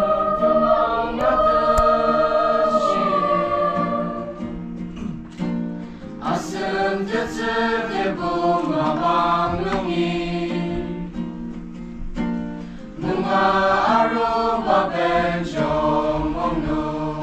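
Mixed choir of young men and women singing together, in phrases of a few seconds each, over a steady sustained accompaniment.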